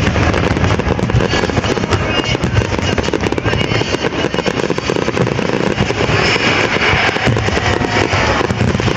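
Fireworks display: aerial shells and fountains going off in quick succession, a steady run of bangs and crackling.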